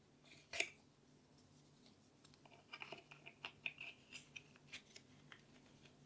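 Faint clicks and light taps of 3D-printed plastic parts being handled and pressed together: one sharper click about half a second in, then a scatter of small ticks through the middle.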